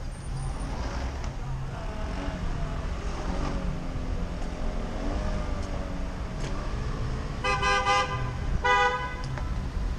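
Two short vehicle-horn toots, about seven and a half and nine seconds in, the second briefer than the first, over a steady low rumble of traffic and wind on the microphone of a moving bicycle.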